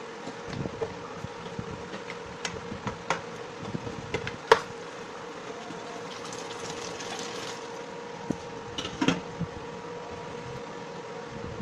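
Wooden spatula stirring, knocking and scraping against a stainless steel pot of thick sauce, over the steady hum of an induction cooktop's fan. A cluster of knocks about nine seconds in as the glass lid is set on the pot.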